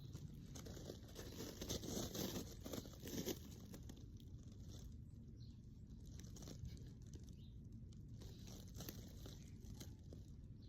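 A brush being drawn through a cat's fur in scratchy, rustling strokes. The strokes are loudest about two to three seconds in, then continue more softly.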